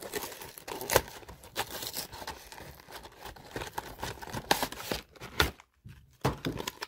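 Cardboard packaging of a Pokémon trading card collection box being torn open and handled: tearing and crinkling, broken by several sharp snaps and clicks, the loudest about a second in.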